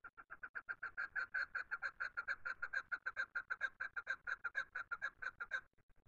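Chukar partridge calling: a fast, even run of clucking notes, about nine a second, that grows louder over the first second and stops suddenly near the end.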